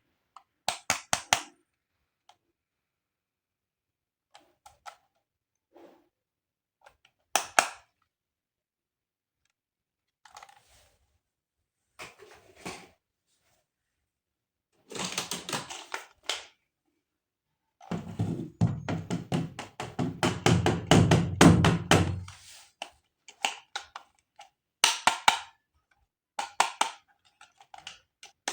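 Hands handling plastic toys and packaging up close: scattered short clicks and taps in small groups, then a dense run of rapid clicking and clacking for about four seconds in the second half.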